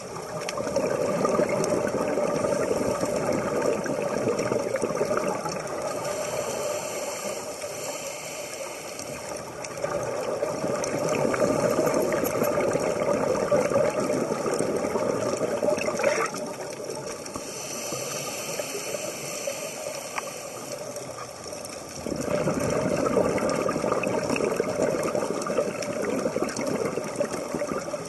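Scuba diver breathing through a regulator underwater: three long rushes of exhaled bubbles, each lasting several seconds, with quieter gaps between them while the diver inhales.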